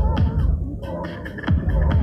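Electronic dance music with a steady thumping beat; the beat drops out about half a second in and comes back about a second and a half in.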